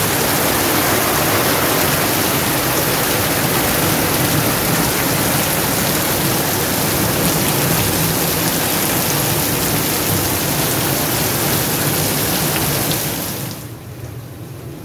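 Heavy rain pouring onto leaves, grass and bare ground: a loud, steady hiss that cuts off abruptly near the end.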